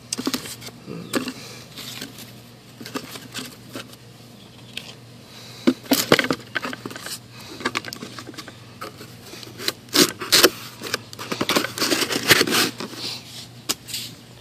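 Cardboard box of rifle parts being handled: irregular scrapes, knocks and rustles of cardboard, foam and plastic handguards being moved. The box lid is shut before the end. The loudest handling comes in clusters about 6, 10 and 12 seconds in.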